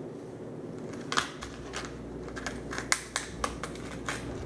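Crinkling and crackling of a clear plastic packaging bag being handled and opened by hand, a run of sharp irregular crackles starting about a second in.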